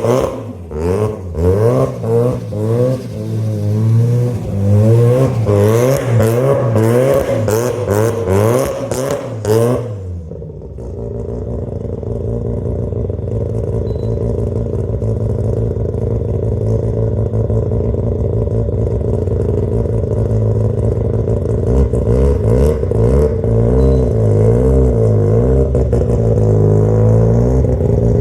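Rotary engine through a Blitz NÜR muffler, revved hard with the pitch rising and falling rapidly and sharp cuts, bouncing repeatedly off the rev limiter. About ten seconds in it drops back to a steadier drone that grows louder, and its pitch wavers again near the end.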